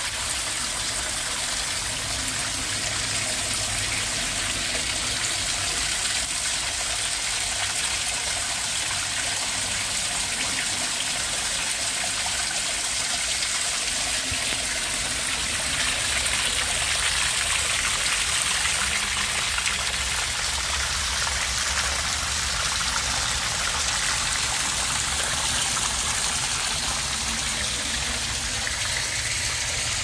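Small waterfall pouring off a mossy rock ledge and splashing steadily into a pool below.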